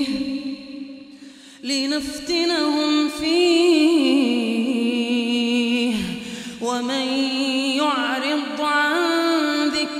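A man's solo voice chanting Quranic recitation in melodic tajweed style, with long, ornamented held notes. A brief pause comes about a second in, then two long phrases.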